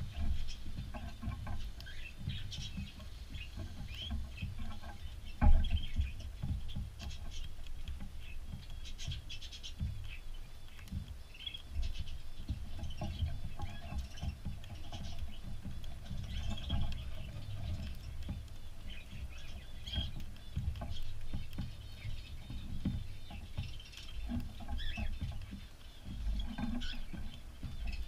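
Cockatiels shuffling and pecking at a seed dish right against the microphone, with crackly ticks and rustling over a low rumble, and scattered short chirps and calls. There is one sharp knock about five and a half seconds in.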